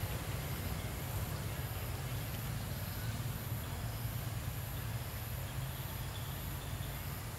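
A steady low mechanical hum, like an engine running nearby, with a faint high tone pulsing at regular intervals above it.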